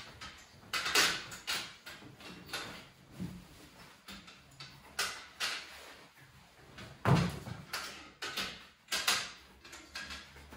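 Rustling and handling noises of a man sitting down on a treatment couch and pulling off his shoes and socks, a series of irregular short scuffs and knocks, with a heavier thump about seven seconds in.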